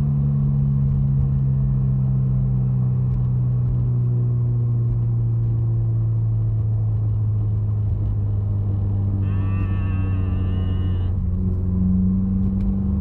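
Car engine running while driving, a steady drone whose pitch sinks slowly as the car eases off, then climbs again near the end as it picks up speed. A brief warbling high tone sounds for about two seconds around nine seconds in.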